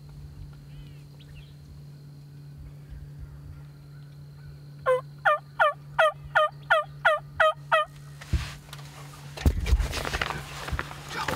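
Turkey yelping: a run of about nine falling notes, roughly three a second, lasting about three seconds. Then a louder, short spell of knocking and rustling near the end.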